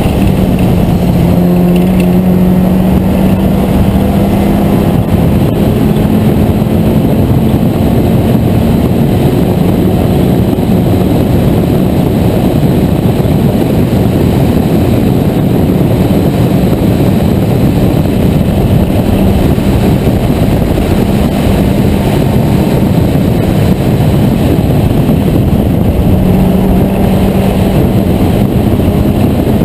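Vintage racing car's engine running hard at speed, with heavy wind roar over the open cockpit; the engine note rises slightly early on, sinks into the wind noise in the middle and comes back near the end.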